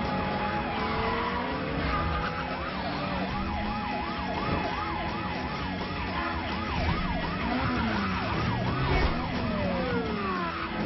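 Several police car sirens sounding at once. There are slow wails gliding down near the start and end, and a fast yelp rising and falling about three times a second from about two to nine seconds in, over a car engine.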